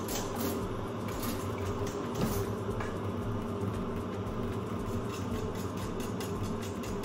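A whisk beating eggs in a stainless steel bowl, making a quick run of light scraping ticks, over a steady low hum.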